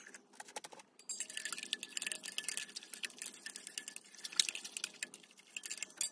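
Glass stirring rod clinking and scraping rapidly against the inside of a glass beaker while stirring a milky silver chloride precipitate. The clinking starts about a second in and runs on unevenly.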